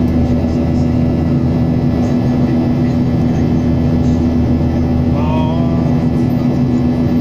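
Steady drone of a jet airliner's turbofan engines and airflow heard inside the cabin, with a constant low hum under it. A brief snatch of a voice comes about five seconds in.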